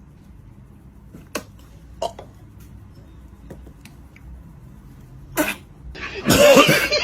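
Quiet room noise with a few soft clicks, then near the end a sudden loud vocal outburst from a person, a cough-like sputter.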